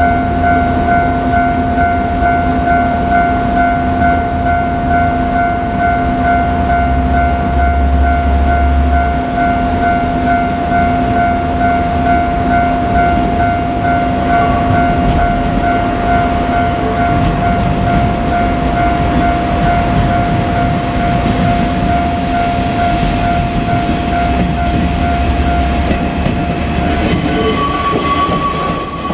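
KiHa 47 diesel railcars running with a heavy low engine rumble. Over it, a steady high warning tone from the level crossing sounds and stops about two seconds before the end. A different, higher tone takes over briefly after that.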